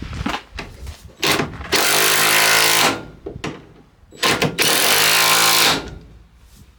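Impact wrench hammering the towbar mounting bolts up tight on a van chassis, in two bursts of about a second and a half each, with short clicks as it is fitted onto the bolts.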